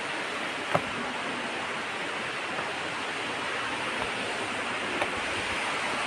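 Steady rushing of a distant waterfall falling into its plunge pool, with a sharp click about a second in and a fainter one near the end.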